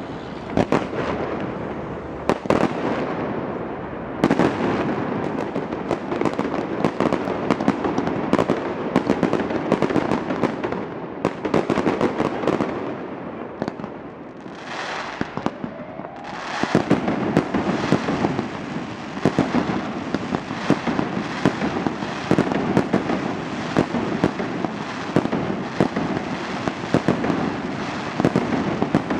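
Fireworks display: a continuous barrage of bangs and crackling bursts, easing off briefly about halfway through before building back up.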